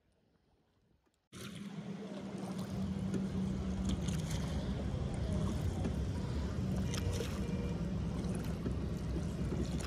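A motor running steadily with a low hum and rushing noise, cutting in suddenly about a second in, with a few light clicks over it.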